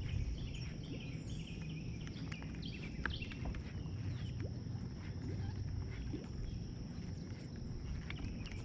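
Outdoor lakeside ambience: a steady low rumble under birds chirping, with a thin, steady high-pitched hum throughout and a few faint ticks.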